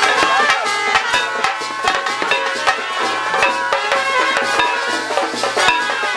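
Traditional Indian temple ritual music: drums beating about twice a second under a wavering, pitch-bending melodic line.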